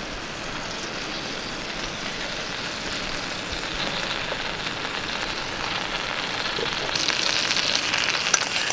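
Whole trout frying in butter and soy sauce in a pan, a steady sizzle that grows louder, with sharper crackles and pops from about seven seconds in.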